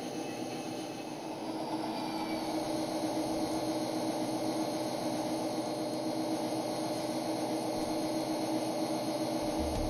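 Simulated diesel locomotive engine sound from a Kato Sound Box for an N-scale Metra MP36PH model: a steady engine drone with a couple of held tones. It gets a little louder about a second and a half in.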